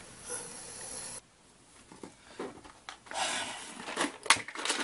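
Rustling and clicking of a clear plastic container being handled, with a sharp click about four seconds in.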